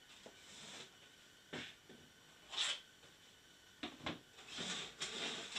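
Handling noises as things are moved around a workbench: scattered knocks and scrapes, two sharp knocks about four seconds in, then rustling near the end.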